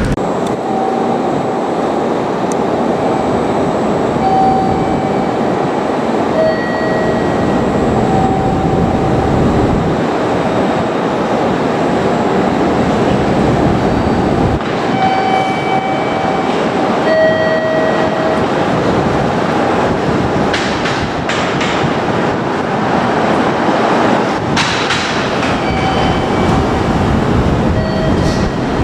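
JR Kyushu 787 series electric train running on the rails, a steady loud rumble of wheels and running gear, with several brief high squeals and a cluster of clicks about two-thirds of the way through.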